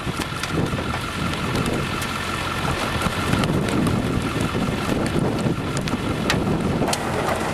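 Storm wind buffeting the microphone, a steady low rush, with scattered faint clicks.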